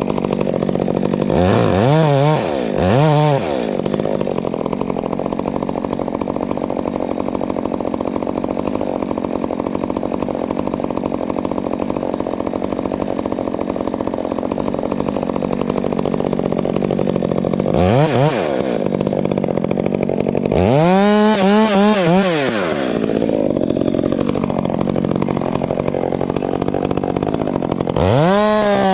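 Stihl chainsaw running, its engine speed rising and falling quickly several times, with a longer rise to high revs held near the end.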